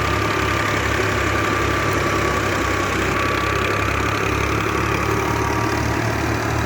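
Wheat thresher machine running steadily, its engine chugging low and evenly with a thin, steady high whine above it.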